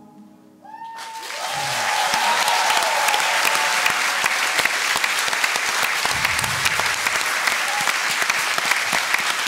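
Theatre audience applauding. The clapping starts about a second in, builds quickly and then holds steady.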